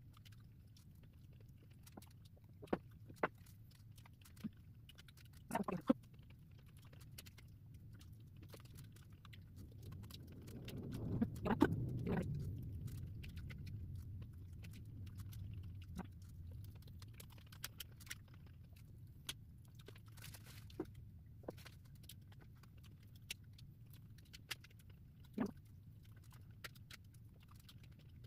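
Close-up eating sounds: scattered light clicks of a fork on a plate and chewing of pancit bihon rice noodles, with a longer stretch of slurping noodles about eleven seconds in.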